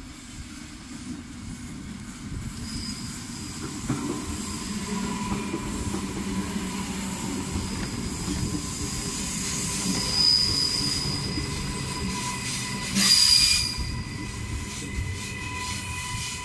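Electric suburban passenger train pulling into the platform and braking to a stop, its rumble growing as it comes in, with a steady high-pitched squeal from the wheels and brakes. A short, loud hiss comes about 13 seconds in.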